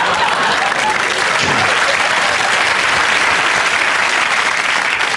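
Studio audience applauding, a loud, steady clapping.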